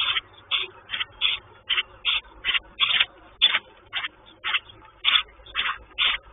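A sparrow chirping, short sharp chirps repeated steadily about twice a second.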